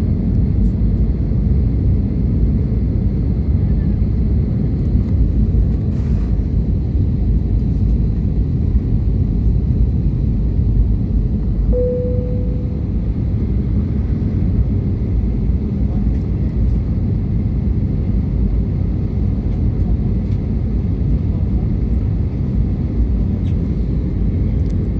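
Steady low rumble of a jet airliner's engines and rushing air heard inside the passenger cabin on approach to landing, with one short tone about twelve seconds in.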